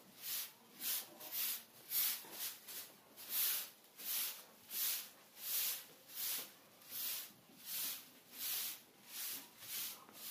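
Long grass-bristle broom sweeping a dusty concrete floor in short, even strokes: a soft swish about every half to three-quarters of a second, coming a little faster in the first couple of seconds.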